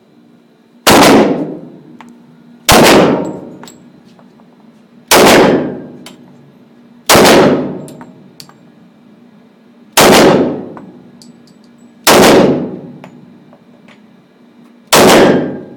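Seven shots from a Glock 9mm pistol, fired one at a time at uneven intervals of about two to three seconds. Each crack is followed by about a second of echo from the range.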